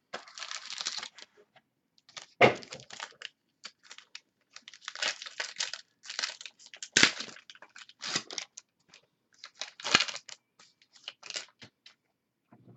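Cardboard and trading cards being handled by hand: a box lid lifted off and packs pulled out, with irregular rustling, scraping and sliding. Sharp clicks and taps stand out about two and a half, seven and ten seconds in.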